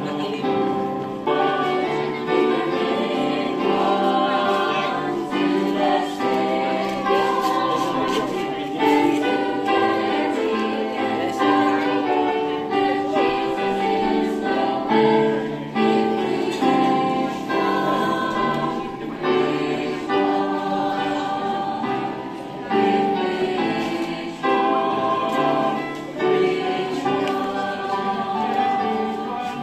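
Music with a group of voices singing together.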